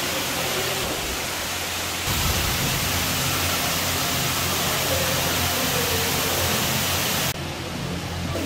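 Steady rushing hiss of water cascading down an artificial rock-wall waterfall, with a low steady hum underneath. It grows louder about two seconds in and turns suddenly duller near the end.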